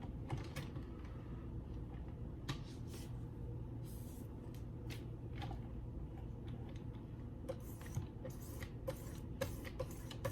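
Sharpening stones of a Wicked Edge guided sharpener stroking along a D2 steel knife blade: light scrapes and clicks, settling into an even rhythm of about two strokes a second near the end, over a low steady hum.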